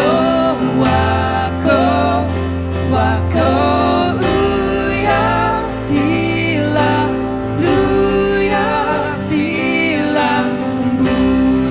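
Live worship music: a band with guitar and bass accompanying sung vocals in a gospel style, with no break.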